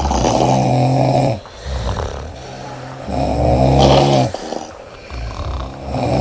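A sleeping woman snoring loudly: two long snores about three seconds apart, with a softer breath between them, and the next snore starting near the end.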